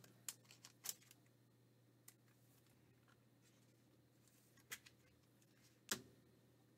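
Near silence broken by a few faint, short clicks and taps of trading cards and plastic card holders being handled on a table, the loudest a little before the end.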